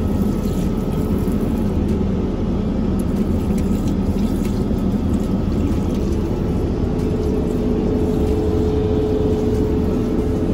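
Steady drone of an airliner's engines and airflow heard inside the passenger cabin, with a steady hum that grows stronger about seven seconds in.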